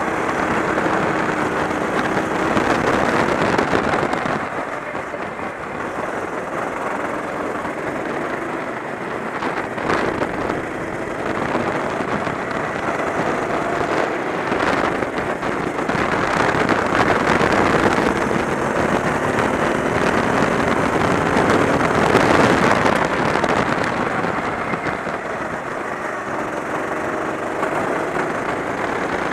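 Kart engine running at racing speed, rising and falling in pitch as the kart accelerates out of corners and slows into them, under a loud rush of wind and road noise.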